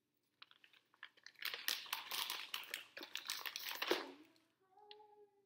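Candy packaging crinkling and rustling as it is handled and opened: a few light clicks, then a dense stretch of crackling from about a second and a half in that stops sharply near the end.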